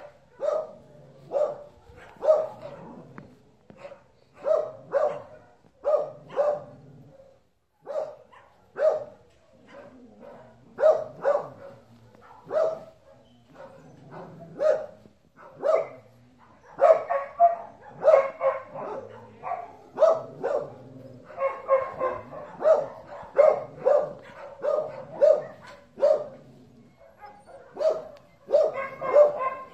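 A dog barking repeatedly, about one or two barks a second, with a short thinner spell about halfway through.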